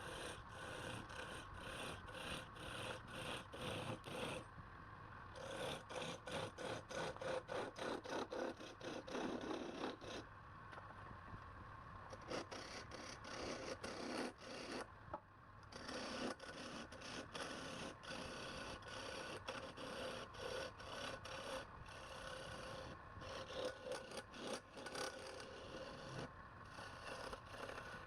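Wood being worked with rapid, repeated rasping strokes over a steady machine hum. The strokes pause briefly a few times.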